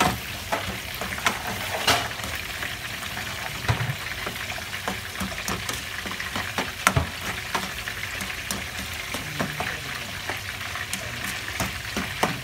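Chopped mortadella in a mayonnaise-ketchup sauce sizzling in a pan, with a spatula scraping and knocking against the pan as it is stirred; the louder knocks come about 2 and 7 seconds in.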